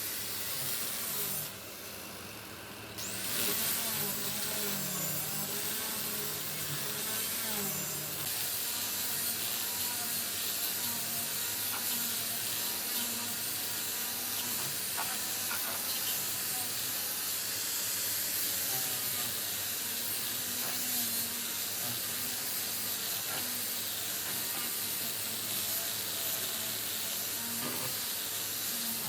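Workshop power tool running with a steady hiss, dropping off briefly near the start and then running on evenly.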